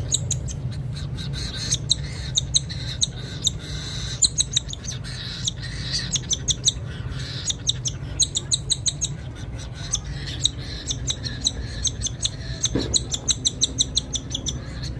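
Baby cockatiels giving rapid runs of short, high-pitched begging calls, several a second, which is the sign that the chicks are hungry and want feeding. A steady low hum runs underneath.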